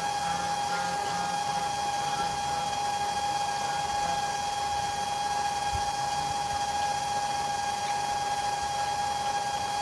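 A small motor giving a steady, unchanging whine at one constant pitch, over a light hiss.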